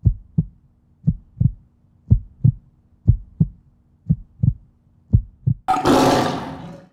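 Heartbeat sound effect: pairs of deep thumps, about one pair a second, six times. Near the end a sudden loud burst of noise cuts in and fades away.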